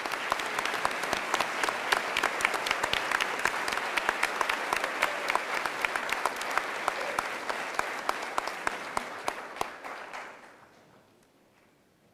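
Audience applauding: many hands clapping together in a dense, steady patter that dies away about ten and a half seconds in.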